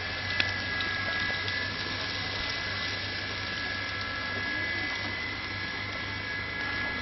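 Wet squelching and sloshing as a hand kneads raw goat intestines into blood in a metal pot, over a steady background hum.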